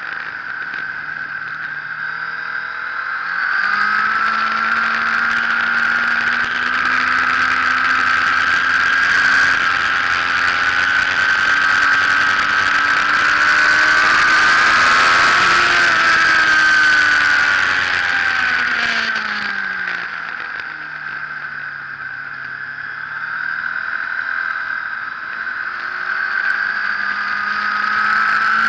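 Sport motorcycle engine heard from an onboard camera at track speed, with heavy wind rush. The engine note climbs slowly for a long stretch under power, drops away a little past the middle as the rider rolls off, then rises again near the end. The wind rush swells and fades with the speed.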